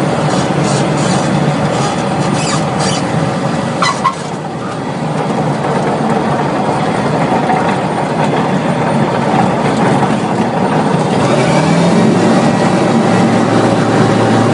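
Single-engine light aircraft's piston engine and propeller running steadily, heard from inside the cockpit. There is a brief click about four seconds in, and the engine note rises near the end as the revs pick up.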